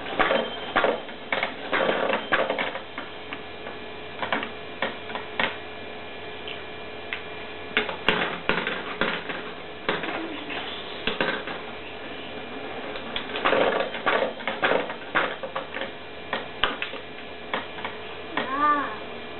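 Plastic balls clattering down the spiral chutes of a Kumon Kuru Kuru Chime ball-drop toy, in irregular runs of quick clacks. A small child's short vocal sound near the end.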